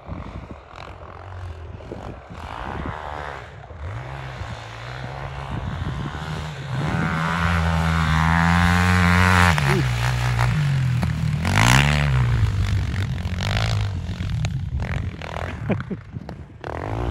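KTM 450 SX sport quad's single-cylinder four-stroke engine revving as it is ridden hard through snow, its revs climbing and dropping several times and loudest around the middle.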